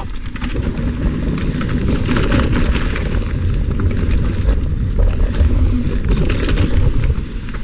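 Mountain bike riding fast down a dirt trail: knobby tyres rolling over packed dirt with a constant low rumble of wind on the camera microphone, and scattered rattles and knocks from the bike over bumps.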